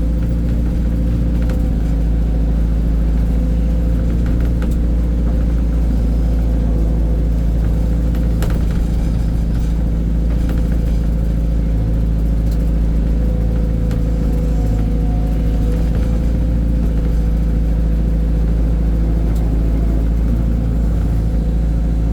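Heavy diesel engine running steadily with a deep, even rumble, with a few faint clicks over it.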